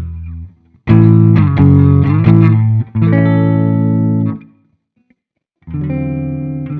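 Electric guitar (a Chibson Gold Top) played through an amp: a loud run of strummed chords and notes, a gap of about a second, then another ringing chord phrase begins near the end.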